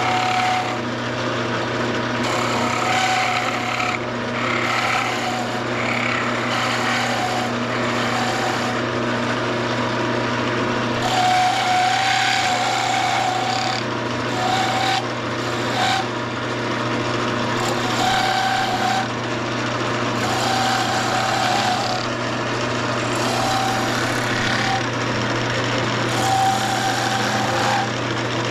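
Wood lathe running steadily while a skew chisel cuts the spinning wooden bobber blank, the tool scraping in short, repeated passes.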